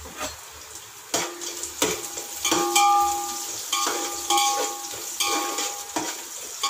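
Onions sizzling as they fry in oil and ghee in a metal pot, while a spoon stirs them. From about a second in the spoon knocks against the pot about seven times, each knock leaving the pot ringing briefly.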